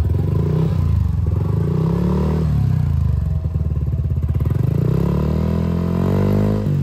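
Yamaha NMAX Neo 2024 scooter's 155 cc single-cylinder engine blipped through an aftermarket exhaust with no dB killer fitted, its pitch rising and falling with several short throttle blips, then one longer rev climbing near the end before dropping back suddenly.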